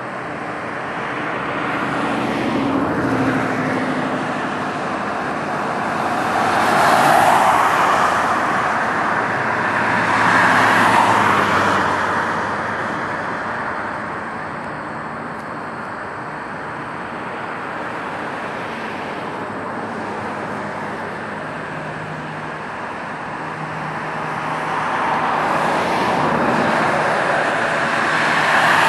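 Jet engine roar from an Airbus A340-600's four Rolls-Royce Trent 500 engines at takeoff thrust during the takeoff roll, rising near the end as the aircraft rolls closer. Two swells of louder passing noise come about a quarter and a third of the way through.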